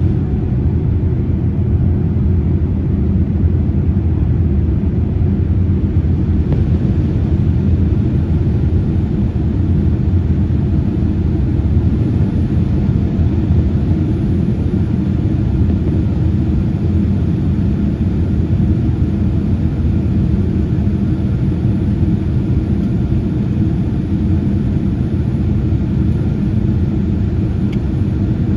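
Airliner's engines running with a steady low rumble.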